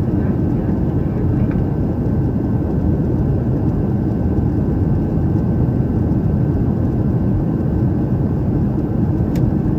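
Steady low rumble of a Boeing 737-800's CFM56-7B jet engines heard from inside the passenger cabin, with a thin steady whine above it.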